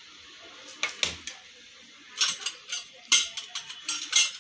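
Handling noises from miniature toy kitchenware: a few light clicks as a small tin is fiddled with, then repeated rustling and clinking as a hand rummages in a bag of wrapped pieces.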